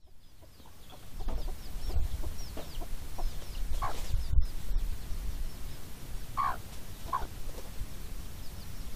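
Chickens clucking a few short times, over a chick's fast, high, repeated peeping. A few low thumps and rumble underneath, the loudest thump near the middle.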